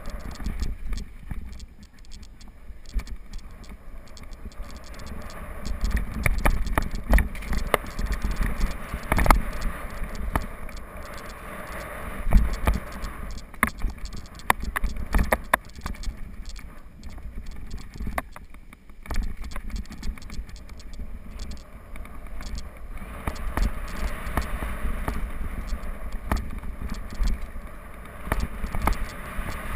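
Mountain bike ridden fast down a dirt and rock singletrack: tyres rolling and scraping over dirt, the bike rattling, with frequent sharp knocks as it goes over rocks. Under it runs a steady low rumble of wind on the bike-mounted camera's microphone.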